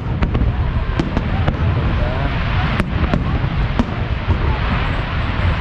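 An aerial fireworks display going off: sharp bangs and crackles at irregular intervals over a steady low rumble, with crowd chatter underneath.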